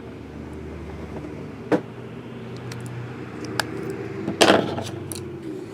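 Handling of plastic-wrapped trading card boxes: small clicks and crinkles, with one louder crackle about four and a half seconds in, over a low steady hum that stops near the end.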